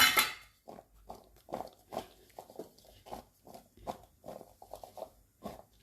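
Parboiled potato sticks being tossed and mixed with cornflour in a bowl: a string of soft, irregular squishy rustles, about two a second.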